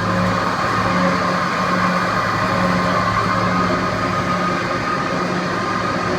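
Marvel 8MKII metal-cutting bandsaw running steadily, its blade cutting through steel tube: a low motor hum under a steady metallic rasp.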